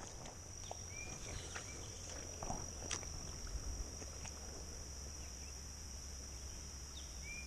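Insects drone with one steady high-pitched note, joined by a few short chirps and some light clicks.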